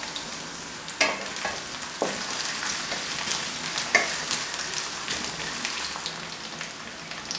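Sliced onions sizzling in hot mustard oil in a metal karahi, stirred with a wooden spatula. A few sharp knocks of the spatula against the pan sound about one, two and four seconds in.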